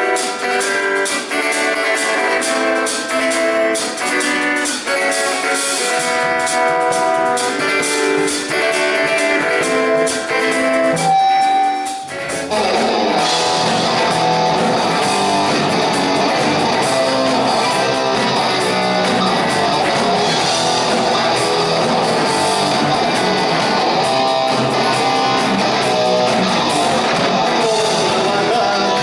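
Live rock band playing an instrumental intro: a lone guitar picks a melody, then about twelve seconds in the full band comes in and plays on together.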